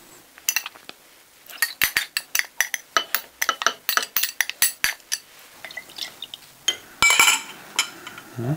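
Metal spoon clinking and scraping against a small glass bowl as lemon zest is scooped out into a glass jar: a rapid run of light clinks over several seconds, then a few more and a brief glassy rattle near the end.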